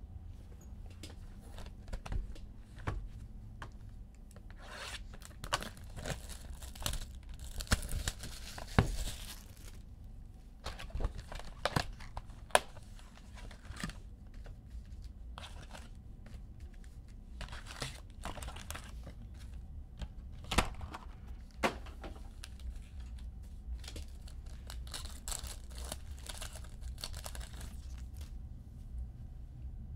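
Trading-card pack wrappers being torn open and crinkled, in several spells of rustling, with scattered sharp clicks and taps from the cards being handled.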